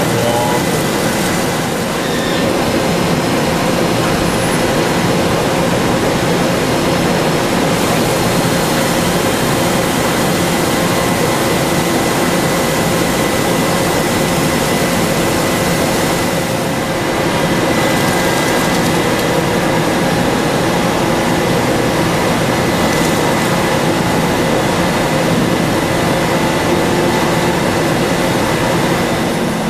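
Matsuura CUBLEX-42 mill-turn CNC machine cutting a metal part under flood coolant. A steady, dense rush of spraying coolant and cutting noise, with a steady whine running through it.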